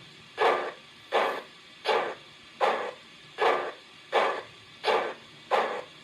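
Digital steam sound from a model BR 94 tank locomotive's ESU LokSound 5 XL decoder, playing a Brinkmann/Benning sound file through the model's speaker: evenly spaced exhaust chuffs, about one every three-quarters of a second, as the engine runs at a slow, steady pace.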